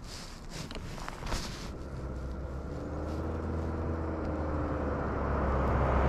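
A motor vehicle approaching on the road, its low engine hum and tyre noise growing steadily louder.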